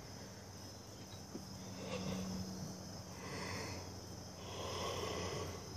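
Crickets chirring steadily over a low hum, with a man's long breathy yawn swelling up about three seconds in and again about five seconds in.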